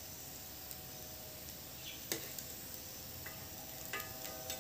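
Masala-coated peanuts deep-frying in hot oil in a metal kadai, sizzling softly with a faint crackle, the sign that the peanuts are frying through. A spatula stirs and scrapes against the pan a couple of times.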